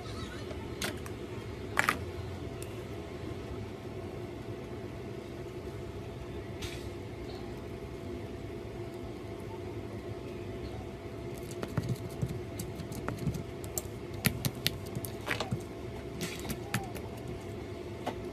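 Slime being squeezed and poked, giving sharp sticky clicks and pops over a steady background hum: a couple near the start, then a dense run of clicks from about two-thirds of the way in.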